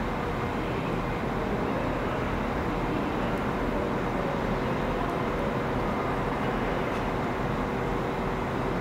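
A train running steadily at a station: a continuous, even rumble with faint steady hums.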